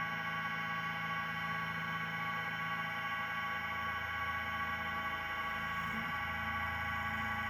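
Hobby CNC machine's high-speed spindle running a carbide end mill through Inconel 718: a steady, high, many-toned whine over a lower hum that shifts about six seconds in.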